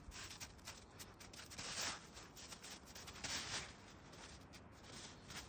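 Faint crunching and scraping of crusty snow, with scattered small crunches and two longer soft scrapes about two and three and a half seconds in.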